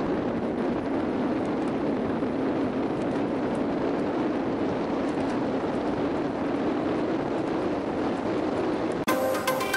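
Steady rushing wind noise on a handlebar-mounted camera's microphone as a road bike rolls along a paved road. About nine seconds in, it cuts suddenly to electronic music.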